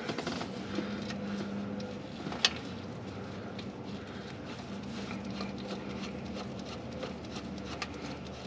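Faint metal clicks and handling sounds as a small oil temperature sensor is screwed into an NPT port on the engine block by hand, with one sharper click about two and a half seconds in, over a steady low hum.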